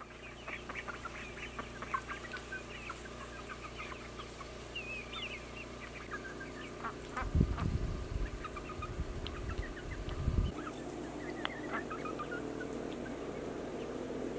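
A flock of chickens clucking, with many short chirping calls throughout. A few seconds of low rumbling on the microphone come past the middle.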